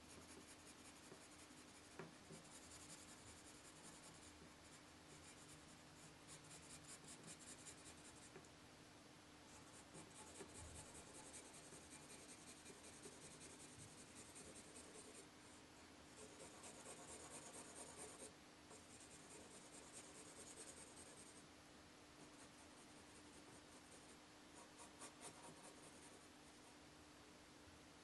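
Pencil shading on paper: faint, quick back-and-forth hatching strokes in runs of a few seconds, with short pauses between.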